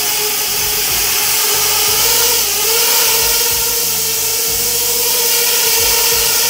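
Chimera 7 FPV quadcopter's motors and propellers whining steadily as it hovers in a test flight, the pitch rising slightly about two and a half seconds in.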